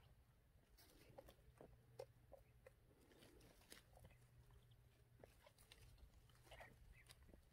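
Near silence with faint scattered clicks and rustles of bramble leaves and stems as a hand picks blackberries, over a faint steady low hum.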